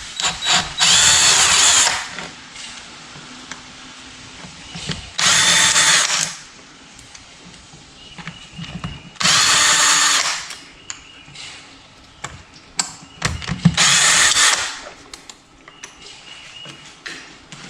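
A power driver fitted with a socket spins out crankcase bolts in four short bursts of about a second each. Small metal clicks come between the bursts.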